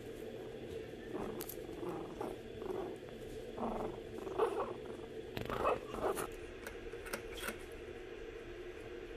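A Shih Tzu puppy pressed against the microphone: an irregular run of short rustling, scuffing noises from its fur and nose rubbing on it, with a few sharp clicks near the middle, over a steady hum.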